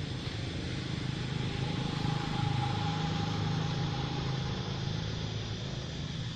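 A steady engine hum, growing a little louder through the middle, with a faint thin whine for a few seconds midway.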